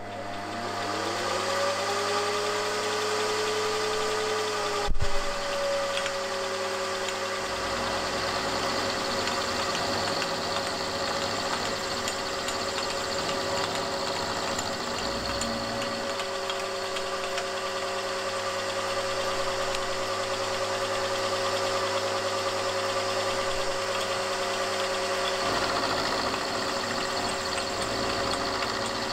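Bench milling machine's spindle spinning up with a rising whine, then running steadily while a 12 mm end mill cuts 6082-T6 aluminium, a steady whine over a cutting hiss. One sharp click about five seconds in is the loudest moment.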